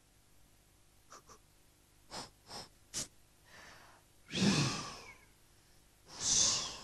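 Performers' breath sounds: a few short puffs, then two longer, louder gasping breaths about four and six seconds in, as a frozen character is brought back to life.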